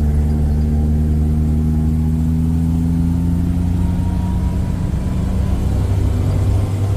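Tour jeep's engine running steadily while driving, an even hum at a nearly constant pitch.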